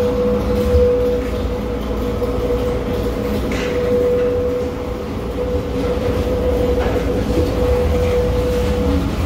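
Interior of an automated airport people-mover tram car in motion: a steady low running rumble with a steady whine that fades briefly about midway and cuts out near the end.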